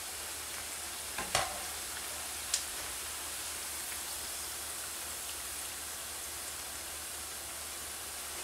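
Oil sizzling steadily as köfte of grated potato and minced meat deep-fry in a pot. Two sharp clicks break in, about a second and two and a half seconds in.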